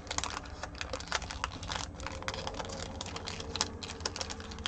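A stack of Topps trading cards being handled and flicked through by hand: a run of quick, irregular clicks and snaps of card stock.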